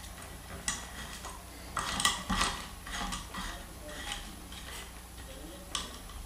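Metal ceiling fan down rod being screwed by hand into the threaded coupling on top of the fan motor housing: irregular metallic clicks and short scrapes as the threads turn.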